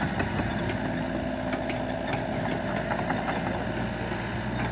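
LiuGong mini excavator's diesel engine running steadily, with a few light ticks or knocks over the engine hum.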